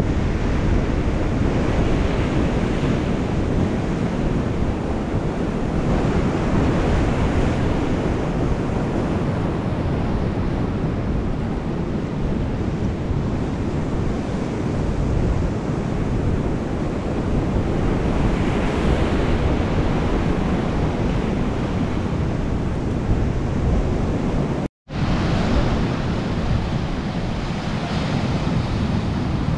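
Ocean surf breaking on a rocky shore: a continuous heavy rush of water that swells louder as waves break, with wind buffeting the microphone. The sound drops out for an instant near the end.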